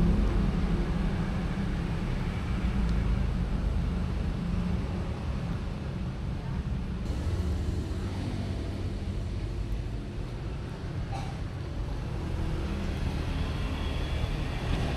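Steady low rumble, with several cats eating from plastic food bowls close by.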